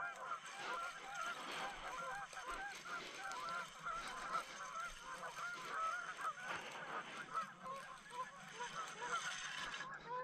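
A dense, continuous chorus of many short honking animal calls overlapping one another, fairly faint and distant.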